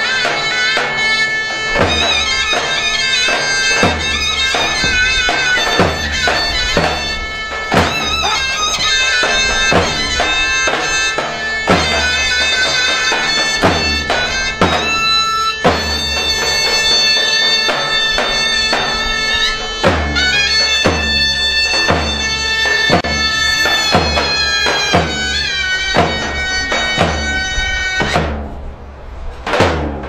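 Zurna and davul playing a slow zeybek tune: a shrill reed melody over heavy drum strokes about once a second. Near the end the melody breaks off and only drum strikes are left.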